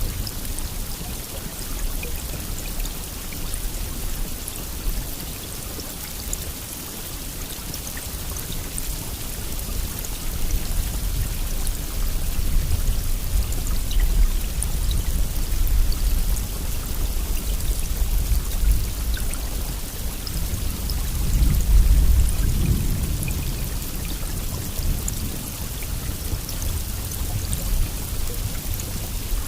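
Steady rain falling, a continuous hiss of drops, with a low rumble underneath that swells briefly about three-quarters of the way through.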